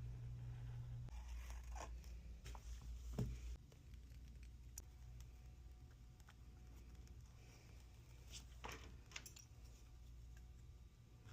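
Faint scrapes, clicks and tearing sounds of hand tools working on an iPad's cracked digitizer glass, over a low hum that drops about three and a half seconds in.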